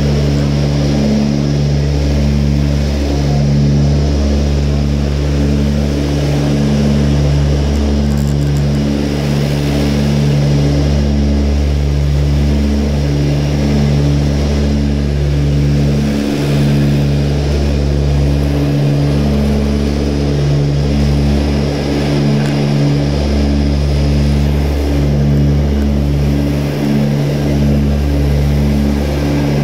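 Cabin drone of an Ilyushin Il-18's Ivchenko AI-20 turboprop engines and propellers in cruise flight: a loud, steady, deep hum made of several low propeller tones that pulse gently as they beat against each other.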